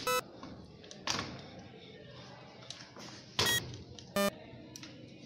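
Camera tripod's height-adjustment handle being turned, giving a few short squeaks of different pitch and some light clicks.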